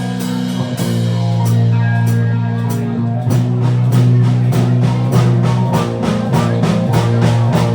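Live hard rock band playing: electric guitar and bass holding low sustained chords over a drum kit, with the drums hitting on a steady, busier beat from about three seconds in.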